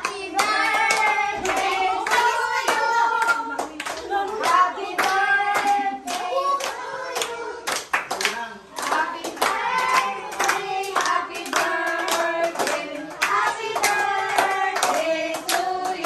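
A small group of adults and children singing a birthday song together while clapping their hands along, with sharp claps over the singing.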